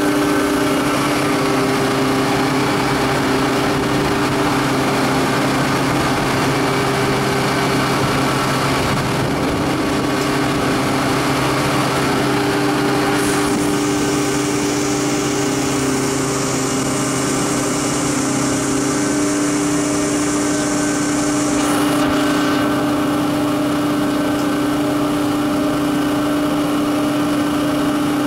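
Biomass sawdust burner plant machinery running steadily: electric motors, a belt conveyor carrying sawdust, a crusher and a blower. It makes a constant hum with several held tones. A higher hiss joins about thirteen seconds in and stops about nine seconds later.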